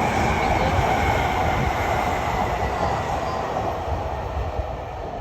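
Keio Inokashira Line electric commuter train running past, wheels rumbling on the rails; the sound eases off over the last couple of seconds as it moves away.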